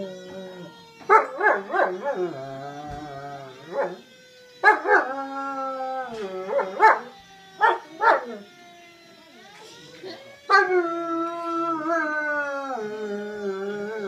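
German Shepherd howling at a fire truck siren: long wavering howls that bend in pitch, broken by quick clusters of short yips and barks.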